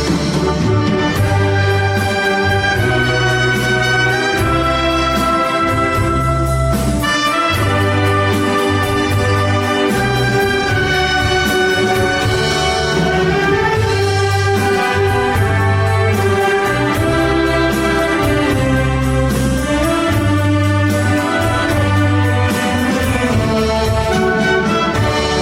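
Wind orchestra playing an arrangement of Korean popular songs, brass carrying the melody over a steady, evenly pulsing bass line.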